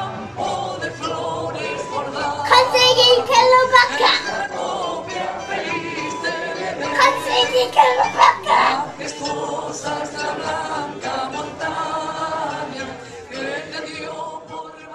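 Music with singing voices, louder in two stretches, around three and eight seconds in.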